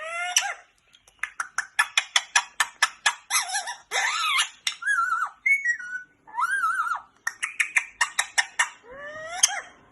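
Parrot calling: a rising whistle opens, then comes a long run of quick sharp chirps and clicks mixed with a few short warbling calls, and another rising whistle near the end.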